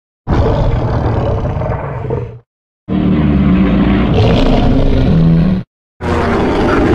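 Three separate giant-monster roars made as sound effects for Zilla, the 1998 movie creature. Each lasts two to three seconds and cuts off into dead silence. The middle roar is the longest and has a stronger pitched low layer. The third roar is still going as the stretch ends.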